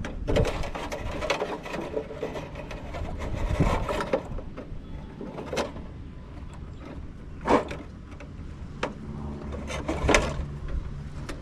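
Irregular clicks, clanks and rattles of hand tools and metal parts being worked, as a light fixture is taken apart for scrap.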